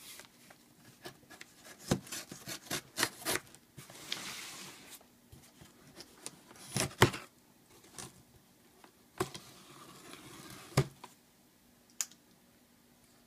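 Benchmade Mini Griptilian folding knife slitting the packing tape along a cardboard box's seam: two stretches of scratchy slicing with scattered sharp clicks and knocks as the box is handled.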